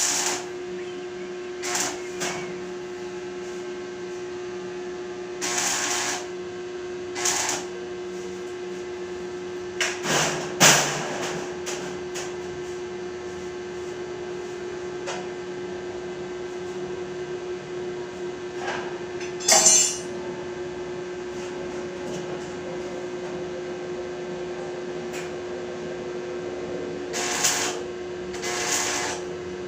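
Steady hum of an arc welding machine, with scattered knocks and taps of metal on metal a few seconds apart, the loudest near the middle.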